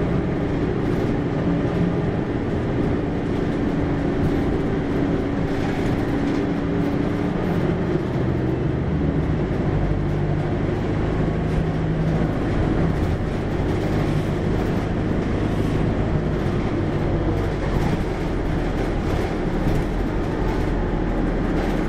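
Diesel engine of a Hino QDG-KV290N1 city bus running with a steady drone. About nine seconds in, the engine note drops lower and a deep rumble grows heavier, then stays steady.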